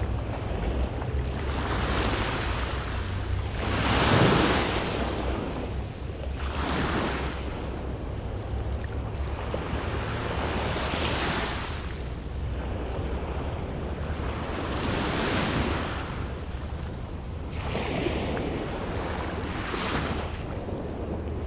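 Small waves breaking and washing up a sandy beach, a hissing surge every three or four seconds, the loudest about four seconds in. Wind rumbles steadily on the microphone underneath.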